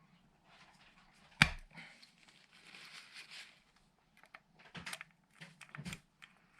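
Handling noises: one sharp knock about a second and a half in, then a stretch of rustling or scraping, and two lighter knocks near the end.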